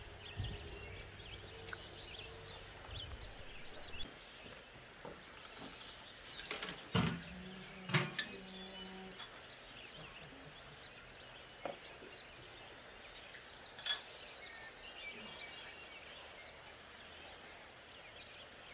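Outdoor ambience with faint birdsong, broken by a few sharp clinks and knocks of dishes being set down on a floor cloth, the loudest two about a second apart near the middle and another a few seconds later.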